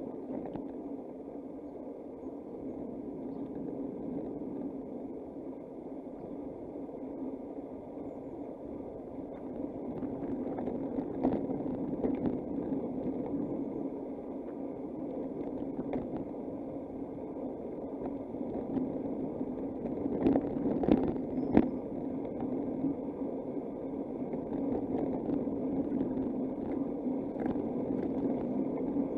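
Steady rushing of wind and tyre noise while riding a bicycle along a road, heard on a bike- or rider-mounted microphone. A few sharp knocks cut through, the loudest a cluster of three about 20 to 22 seconds in.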